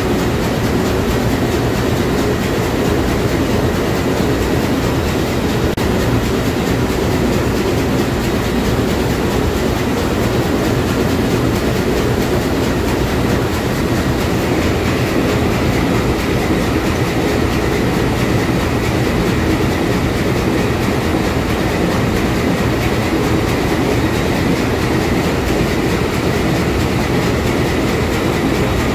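Sulzer 6-62RTA six-cylinder two-stroke marine diesel main engine running at full speed: loud, steady engine-room noise. A faint high whine grows a little stronger about halfway through.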